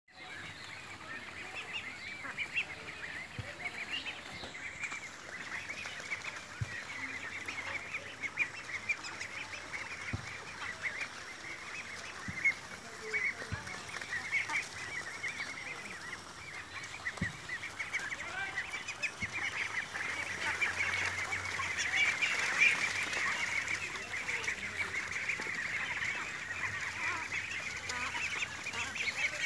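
A large flock of young domestic ducks calling all at once: a dense, unbroken chatter of overlapping short quacks, swelling louder about two thirds of the way through.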